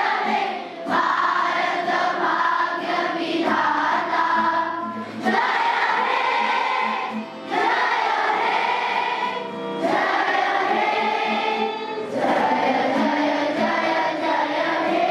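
A group of schoolchildren singing together in chorus, in long held phrases with brief breaks between them every few seconds.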